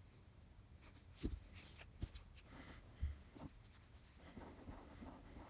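Faint hands-on handling of a plug and cord: scratchy rubbing with four light knocks and clicks, while the wires are fitted into a replacement power plug.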